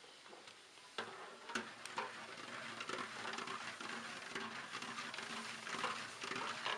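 Soft pattering and scattered light clicks over a steady hiss, as handfuls of cooked rice are pushed by hand off a metal tray into a large cooking pot.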